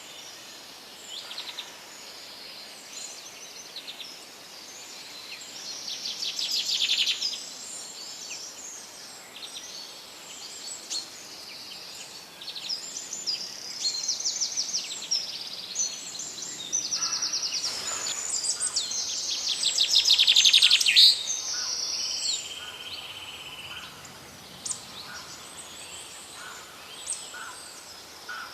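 Songbirds singing and calling together, many overlapping chirps and fast trills, with the loudest trilled phrases about a quarter of the way in and again about two thirds through.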